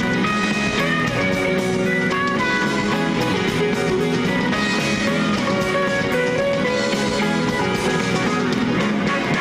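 Live rock band playing: electric guitars over a drum kit, with a guitar picking out a melody of short notes and cymbals ticking steadily.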